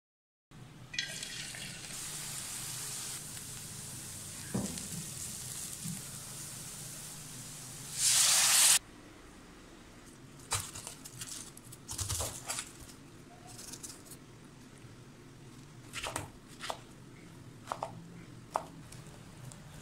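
A steady sizzling hiss of cooking in a pan that ends in a loud, short burst of hissing about eight seconds in. After that, a kitchen knife cuts through peeled pineapple on a cutting board, making a few scattered sharp knocks.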